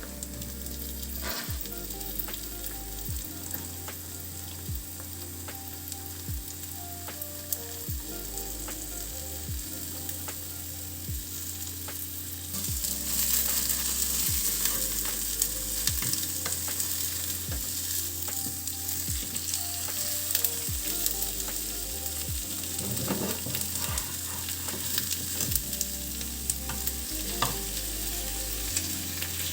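Food sizzling and frying in a pan, stirred now and then with small clicks of a utensil. The sizzle gets louder about halfway through.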